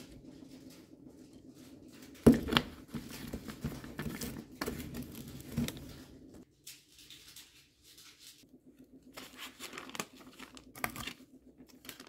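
Plastic being handled: two sharp knocks about two seconds in, then scattered crinkling and rustling, with a plastic zip-top bag being handled near the end.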